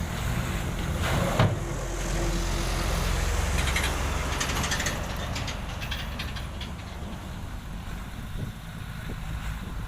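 Heavy diesel engine of road-construction machinery running steadily, with a sharp clank about a second and a half in; the engine sound eases somewhat in the second half.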